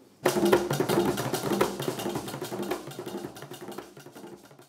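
Drum music for a stage dance, with dense rapid drum strokes over a few sustained low tones. It cuts in abruptly just after the start and fades out gradually.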